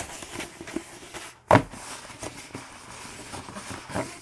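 Rolled diamond-painting canvas with a plastic protective film being handled and unrolled: light rustling and crinkling with scattered small taps, and one sharper thump about a second and a half in.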